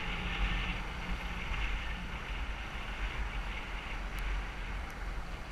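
Motorbike riding at steady speed: wind rushing over the on-board microphone over the engine's low, steady drone.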